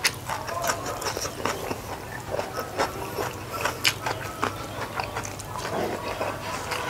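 Close-miked chewing and mouth sounds of a person eating rice and fried side dishes by hand: many short, irregular smacks and clicks.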